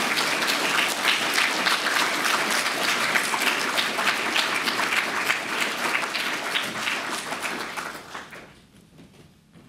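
A seated lecture audience applauding, many people clapping at once, fading out and stopping near the end.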